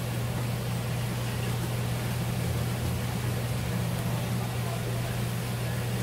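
Steady low mechanical hum with an even hiss over it, unchanging throughout.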